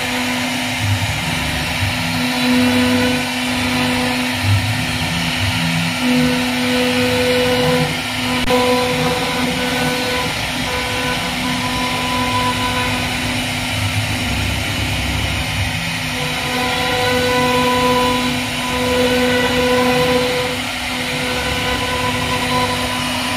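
CNC router spindle motor running with a steady high whine while the bit carves a relief pattern into wood, the cutting noise swelling and easing as the bit moves through the cut.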